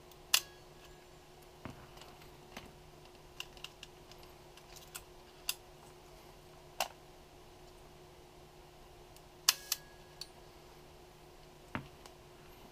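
Polaroid 180 folding camera being handled: irregular sharp metallic clicks and snaps as the lens standard is pulled out on its bellows and latched, and as the lens is worked. The two loudest clicks come about a third of a second in and about nine and a half seconds in, over a faint steady hum.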